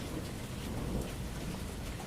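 Steady rain with many separate drops ticking, over a low rumble of thunder.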